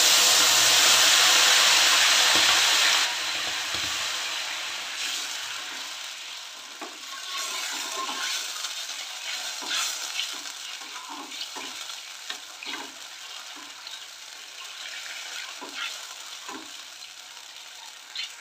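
Water sizzling on hot caramelised sugar in a metal kadai: a loud hiss that drops after about three seconds and fades to a quieter bubbling sizzle. A metal spoon stirs the caramel, with scattered light clinks and scrapes against the pan.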